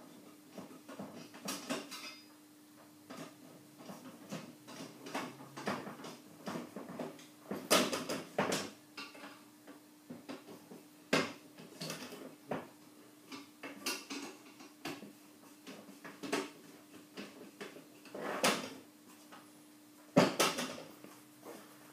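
Scattered clicks, knocks and scrapes from handling an aluminium caravan window frame and its glass, over a faint steady hum. The loudest knocks come about eight seconds in and twice more near the end.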